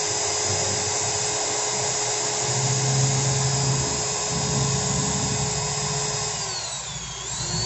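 Ryota RA2010VR 10 mm electric drill running free at steady speed on a used Makita 6412 armature, with a steady whine. About seven seconds in the motor slows briefly and speeds back up. The carbon brushes spark only slightly, which is normal: the armature swap has cured the heavy sparking.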